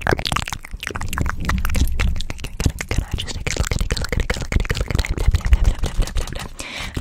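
Fast ASMR mouth sounds and hand movements right at a microphone: a dense, rapid stream of clicks and crackles over an uneven low rumble from hands sweeping past the mic.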